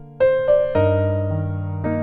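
Background electric-piano music: a slow melody of notes and chords, each struck and left to fade, with a low bass note coming in about three-quarters of a second in.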